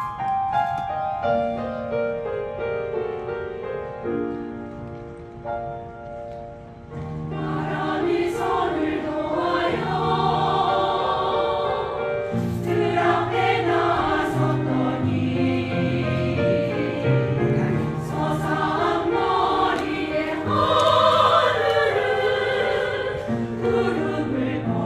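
A choir singing with instrumental accompaniment: a quieter instrumental opening of held, stepping notes, then the voices come in together about seven seconds in and carry on louder.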